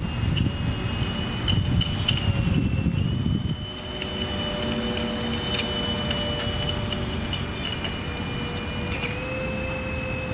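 Homemade RC boat's small electric motor and propeller running at speed: a high steady whine whose pitch shifts slightly a few times, over a low rumble that drops away about three and a half seconds in.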